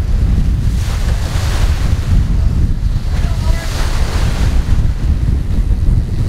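Wind buffeting the microphone over rushing, splashing water in repeated surges as a sport-fishing boat backs down, its stern pushing through the churned-up wake.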